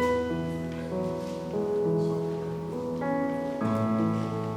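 Soft background instrumental music: sustained keyboard chords changing every second or so.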